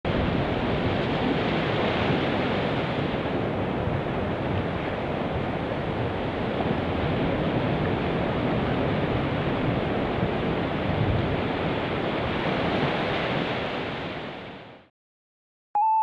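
Steady rushing roar of falling water from a large waterfall, fading out near the end.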